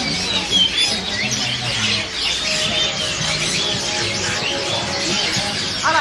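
Dense chorus of many caged songbirds chirping and whistling at once, a steady mass of short overlapping calls with no one bird standing out.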